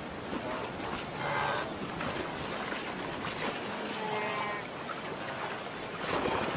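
Wildebeest herd swimming across a river: continuous splashing and churning of water, with short bleating calls from the animals breaking through several times.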